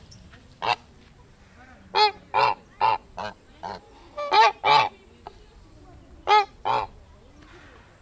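Kholmogory goose honking: about ten loud, harsh honks, mostly in quick pairs.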